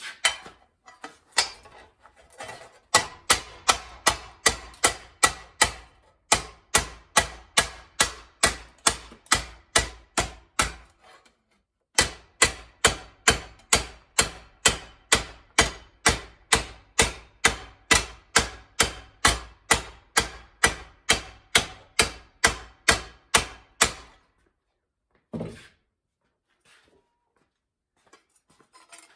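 A hand hammer beating sheet steel in a steady run of ringing blows, about three a second, hand-forming a rust-repair patch. It stops briefly about eleven seconds in, runs on until about twenty-four seconds, and gives one last knock shortly after.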